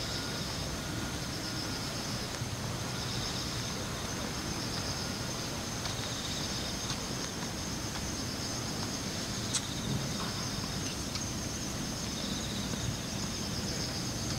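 Insects calling in a steady high-pitched chorus that pulses on and off in stretches of about a second, over a low outdoor background hum, with one short click near the middle.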